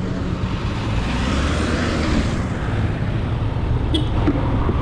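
Motorcycle engine running at low road speed, its note getting a little stronger about a second in as the bike pulls through a turn, with a rush of wind and road noise. A brief sharp click about four seconds in.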